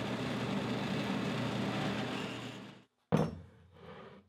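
Drill press running, its bit drilling screw holes through a thick block of HDPE plastic, the sound trailing off about three-quarters of the way through. After a short break, a single sharp knock that dies away quickly.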